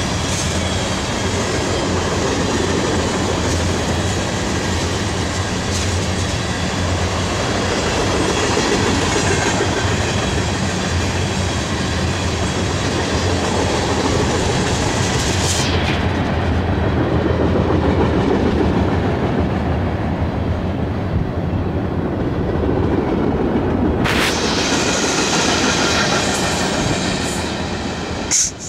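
CSX freight train of tank cars rolling past at track level, a steady rumble and clatter of steel wheels on the rails. The noise falls off sharply near the end as the last car goes by.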